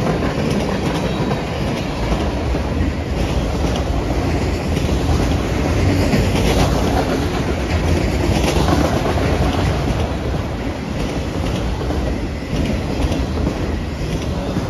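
Freight train cars, mostly enclosed autorack cars, rolling steadily past close by: a continuous rumble of steel wheels on rail with repeated clicks as the wheels cross rail joints.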